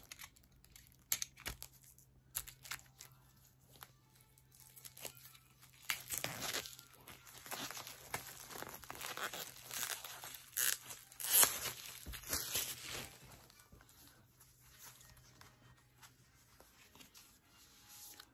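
Plastic shrink-wrap being torn and crinkled off a boxed music album. A few sharp crackles come first, then a long stretch of dense crinkling from about six to thirteen seconds in, which is the loudest part.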